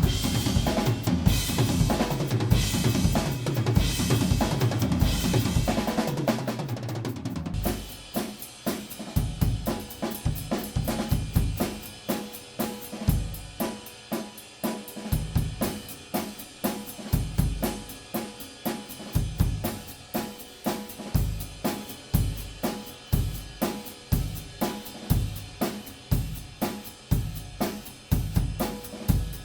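Acoustic drum kit played live: dense, loud fills with crashing cymbals for the first several seconds, then settling about seven seconds in into a steady groove of bass drum and snare hits over ticking hi-hat.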